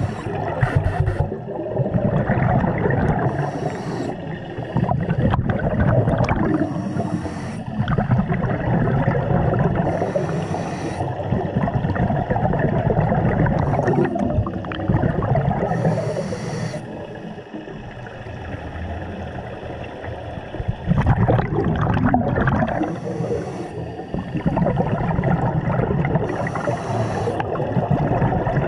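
Scuba diver breathing through a regulator, heard underwater: a hiss on each breath in, every few seconds, with bubbling, gurgling exhaust in between.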